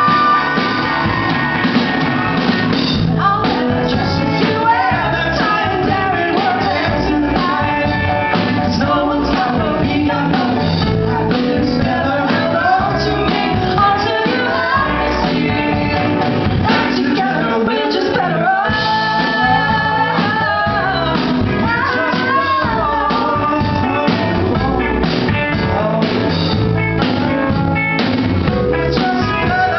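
Live band playing a rock duet: a woman and a man singing over electric guitar, electric bass and drum kit.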